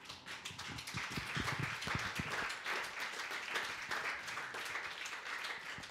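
Congregation applauding: many hands clapping in a dense, even patter.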